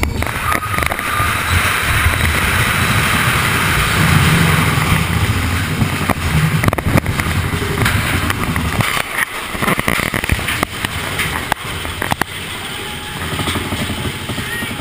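Big Thunder Mountain Railroad mine-train coaster cars running along the track, a steady rumble and rattle with scattered sharp clacks.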